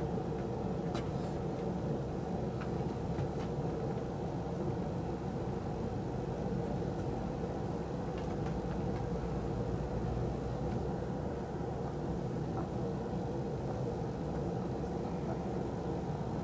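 Fan heater running: a steady low hum and whir of its fan, with a few faint light ticks.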